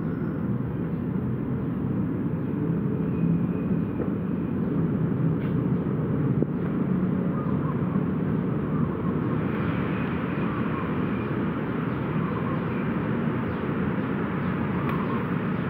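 Steady low outdoor background rumble that holds an even level throughout.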